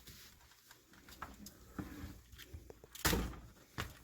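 Scattered small clicks and taps of hands handling a workbench RC truck, with a louder knock about three seconds in and a sharp tap near the end.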